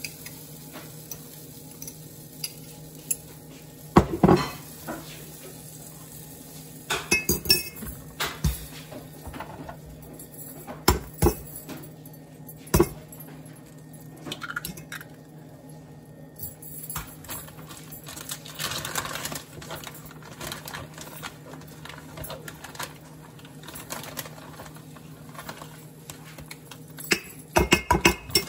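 Kitchen utensils clinking and clattering: a spoon, knife and measuring cup knocking against a glass measuring jug and a plate in scattered taps, with a few sharper clusters. A faint steady low hum lies beneath.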